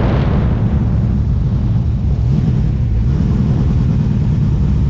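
Drag-race cars' engines running loudly: a steady low drone whose pitch wavers slightly.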